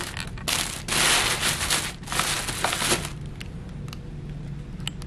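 Tissue paper and gift bags rustling and crinkling as they are handled, in several loud bursts over the first three seconds, then quieter rustling with a few light clicks.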